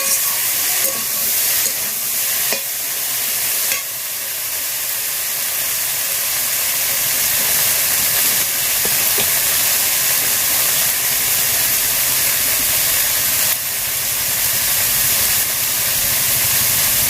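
Food sizzling as it fries in a pan: a steady hiss with a few small jumps in level in the first few seconds.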